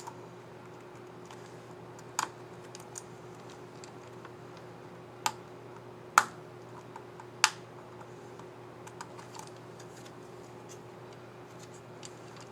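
Clicks from a Lenovo IdeaPad Flex 4 1570 laptop keyboard key being worked: four sharp, loud clicks spaced a second or more apart between about two and seven and a half seconds in, with lighter ticks between and after. A steady low hum underlies them.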